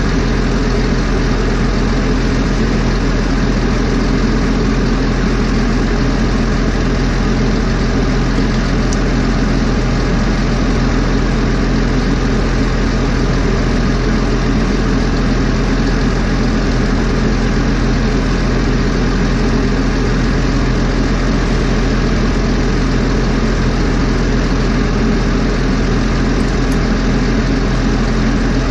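Large engine of a forestry machine idling steadily and loudly, with no change in pitch.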